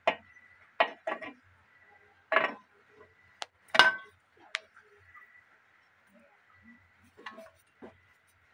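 Metal pipe fittings and tank parts clinking and knocking together as they are handled and fitted, about ten separate knocks and sharp clicks, the loudest a little under four seconds in. A faint steady high hum runs underneath.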